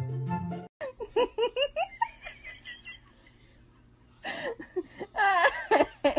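Background music cuts off under a second in, then a person laughs in short, quick bursts. After a quieter pause the laughter comes back louder from about four seconds in.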